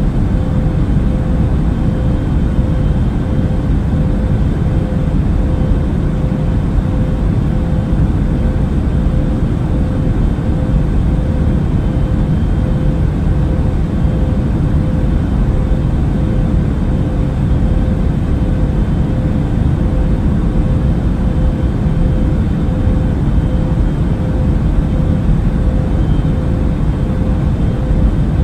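Widebody airliner cabin noise in flight: a steady low rumble of engines and rushing air, with a faint steady hum above it.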